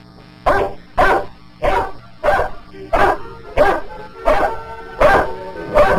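A herding collie barking in a steady run of about nine barks, roughly one every 0.7 seconds, while working a horse into a trailer. Faint music plays underneath.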